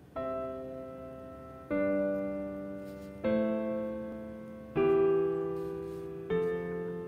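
Background music: slow piano chords, a new one struck about every second and a half, each ringing and fading away.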